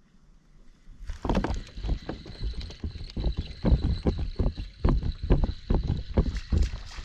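Fishing kayak on the water: irregular knocks, splashes and low rumbling with wind on the microphone, setting in suddenly about a second in.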